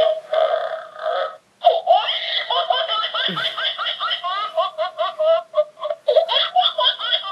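Talking plastic cat squeezer toy playing a recorded laugh through its small speaker: a long string of quick, high chuckles with a short break about a second and a half in.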